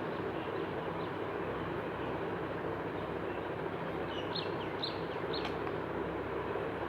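Steady rumbling background noise, with three short, high bird chirps a little past the middle.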